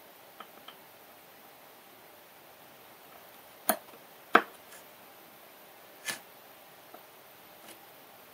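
A few sharp clicks of fine metal tweezers tapping on the desk and board while picking up tiny surface-mount LEDs. There are two faint ticks at the start, three louder clicks in the middle, and a couple of faint ones near the end.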